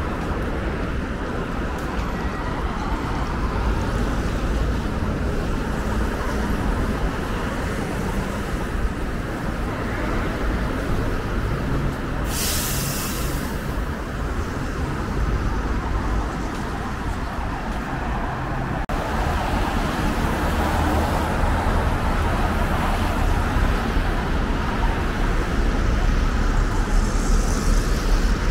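Traffic on a busy city avenue: a steady wash of cars and buses passing. A short, sharp hiss comes about twelve seconds in.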